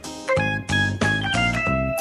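Instrumental background music: a steady run of short, evenly paced notes.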